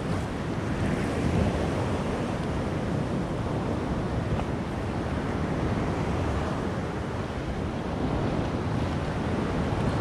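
Choppy Black Sea surf washing and breaking against a concrete groyne, a steady rushing of waves, with wind buffeting the microphone.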